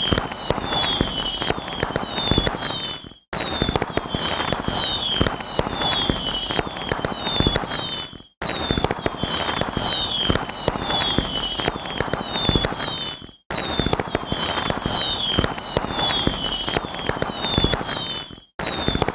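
Crackling fireworks sound effect with short falling whistles about twice a second. It plays as a loop of about five seconds, cutting out briefly before each repeat.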